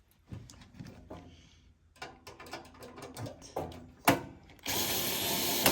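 Small clicks and knocks of metal parts and screws being handled, then, about five seconds in, a power screwdriver starts and runs steadily, backing out a screw holding the exhaust fan.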